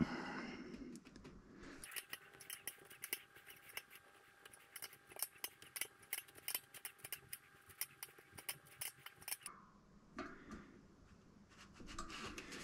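Faint, rapid clicking in short uneven runs from a hand driver as the bolts of a six-bolt disc brake rotor are tightened in sequence on the hub.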